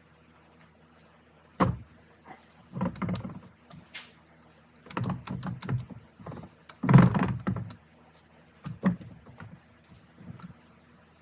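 NP 242 transfer case parts being handled and fitted together: irregular clusters of clunks and knocks, the loudest about seven seconds in, over a steady low hum.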